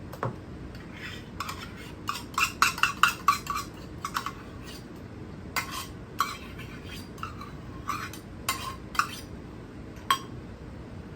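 A utensil clinking and scraping against a mixing bowl as sour cream goes into the custard mixture: a quick run of clinks about two seconds in, then scattered single clinks.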